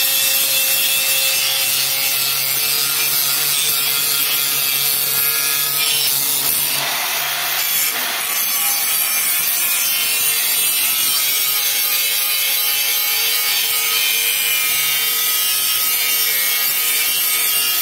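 Handheld electric angle grinder running steadily, its disc grinding a fresh sharp edge onto the rusty steel cutter blades of a soybean thresher. The grind turns briefly rougher about seven seconds in.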